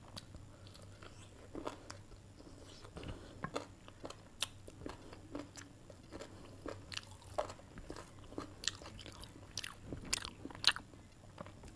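Close-miked eating of chicken curry with rice and salad: irregular crunchy bites and wet chewing clicks, the loudest crunch near the end.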